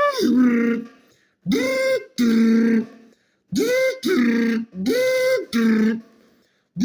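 A person making an impact wrench's sound with their voice: a string of short two-note mouth noises, about seven in all, each jumping between a high and a low pitch.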